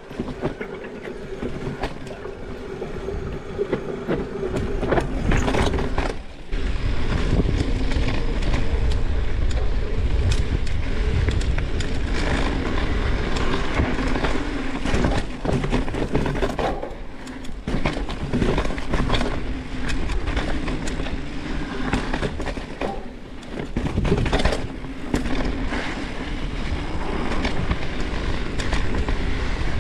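Mountain bike rolling fast over dirt singletrack: tires crunching and rumbling on the trail, with the bike clattering over bumps.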